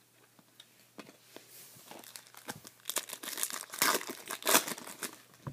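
Foil trading-card pack wrapper crinkling and tearing in the hands, a dense run of sharp crackles starting about two and a half seconds in, loudest around four seconds. Before it, a few light clicks of cards being handled.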